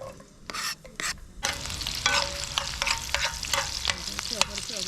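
Food sizzling and crackling in a hot pan, with stirring. It starts after a few short knocks about a second and a half in, and the sizzling carries on steadily with many sharp pops.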